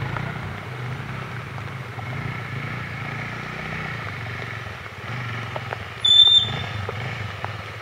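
Off-road motorcycle engine running steadily at low revs. About six seconds in comes a short, loud, high-pitched squeal.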